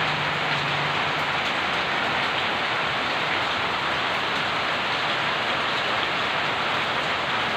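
Steady rain falling: an even, unbroken hiss of rain on surfaces.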